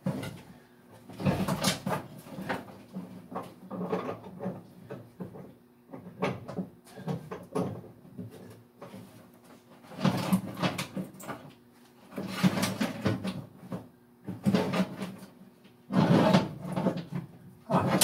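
Someone rummaging through tool drawers: drawers opening and closing, with tools and parts clattering in several bursts separated by short pauses.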